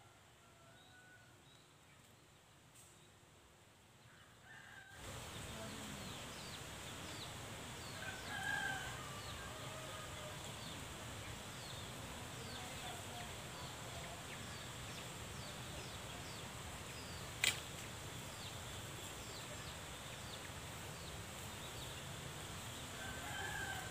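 Rural outdoor background that is quiet at first and grows louder about five seconds in, with many small high chirps repeating throughout. A rooster crows about eight seconds in and again near the end, and a single sharp click sounds about two-thirds of the way through.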